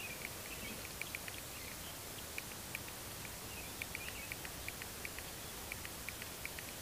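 Outdoor ambience: a steady hiss with irregular short, high chirps from a small animal, several a second.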